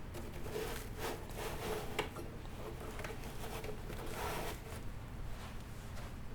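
Rustling and crinkling of aquarium packaging being handled and unwrapped, with a sharp click about two seconds in.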